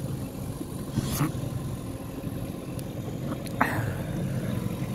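Small boat's engine running steadily while underway, with water splashing against the hull twice, about a second in and again past the halfway point.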